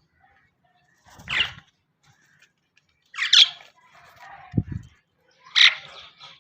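Three short, harsh bird squawks about two seconds apart, with a dull thump between the second and third.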